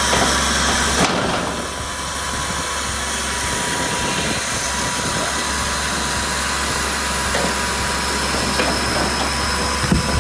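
Wood-processing machinery running steadily: an engine-like drone with a constant high whine and a low hum, louder for about the first second.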